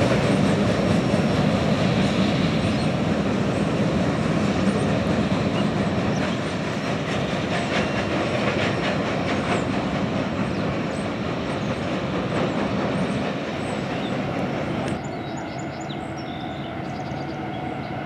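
Freight train boxcars rolling past on the rails, a loud continuous rumble with wheel clicks, slowly fading as the cars move away. About 15 s in it drops abruptly to a quieter, steady low drone from an approaching diesel freight locomotive.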